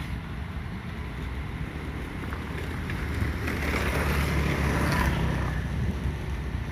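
Steady outdoor background rumble, without speech, that swells for two or three seconds midway and then fades back.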